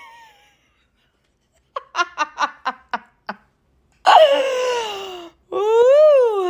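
A person laughing in a quick run of short staccato bursts. Then come two loud, drawn-out vocal sounds, the first falling in pitch and the second rising and then falling.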